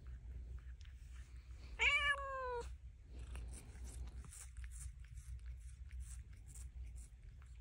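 Domestic cat giving one short meow about two seconds in, falling slightly in pitch, then licking and nibbling at a hand with a run of quick soft clicks, over a steady low hum.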